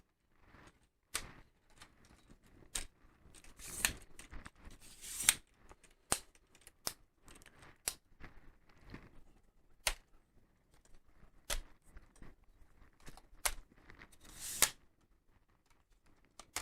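A tripod being handled: scattered sharp clicks and a few short scrapes of its parts knocking and sliding.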